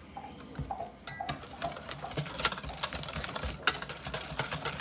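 Wire balloon whisk stirring thick hollandaise sauce in a stainless steel mixing bowl. The wires tick and scrape irregularly against the metal from about a second in.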